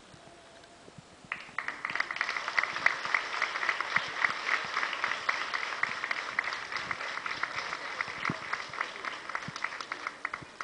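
Crowd applauding: many hands clapping together, starting about a second in and stopping just before the end.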